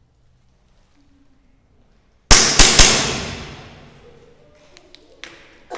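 Three loud, sharp bangs in quick succession about two seconds in, each trailing into a hiss that fades over a second or so, followed near the end by a few light clicks and two more sharp pops.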